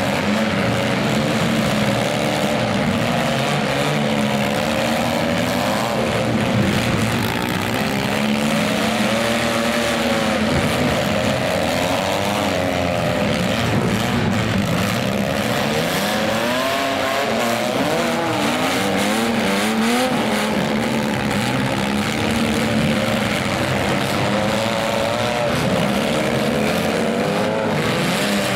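Several minivan engines revving and running at once in a demolition derby, their pitches rising and falling over one another as the vans accelerate, back up and push.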